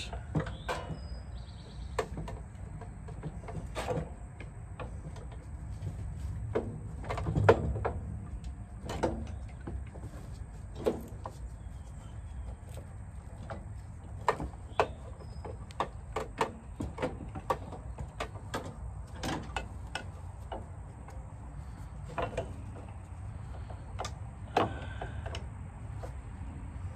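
Irregular metal clicks, clunks and scrapes as a replacement starter motor is worked into its mounting on a lawn tractor's engine, with a louder cluster of knocks about seven seconds in.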